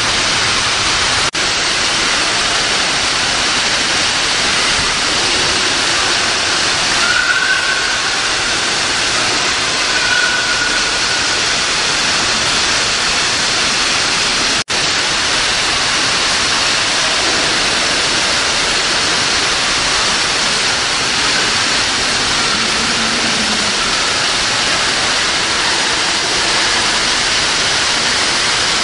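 A loud, steady rushing noise. Two short, faint high calls come through it about seven and ten seconds in, and it breaks off for an instant twice.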